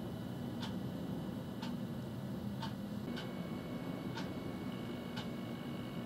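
Car's indicator flasher ticking steadily about once a second, over a low steady hum.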